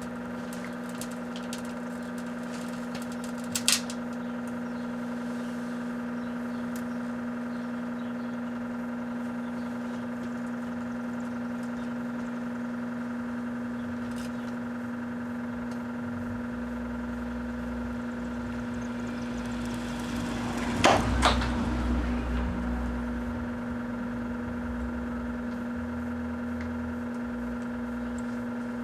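Microwave oven running with a steady electrical hum while a Rubik's Cube heats inside. Sharp pops come about four seconds in and again, louder and followed by crackling, around twenty-one seconds in as the cube cracks and jumps. A low rumble joins the hum from about halfway through.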